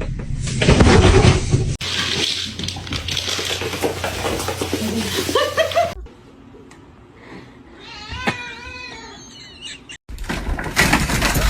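A domestic cat meows across a few abruptly spliced short clips. There are rising calls a little before the middle and the clearest single meow about two-thirds of the way through, with handling and room noise in the louder first clips.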